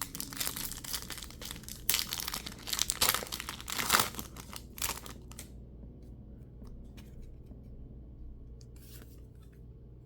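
A mini Pokémon booster pack's wrapper being torn open and crinkled for about five seconds, loudest in the middle. Then a few light ticks and one short rustle near the end as the pack and cards are handled.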